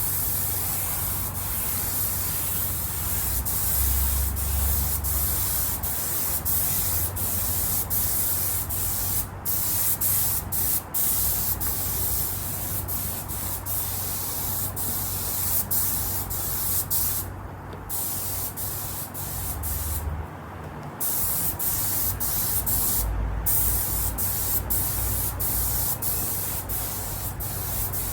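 Spraying colour onto leather car seats: a steady hiss of spray, cut off briefly many times as the trigger is let go, with two longer pauses a little past the middle.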